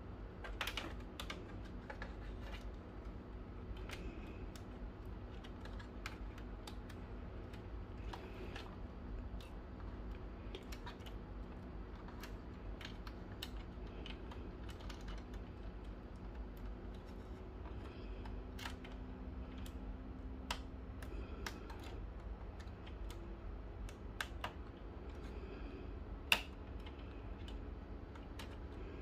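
Scattered small clicks and taps of hands handling wire connectors and plastic parts inside a Brother HL-2270DW laser printer, with one sharper click near the end.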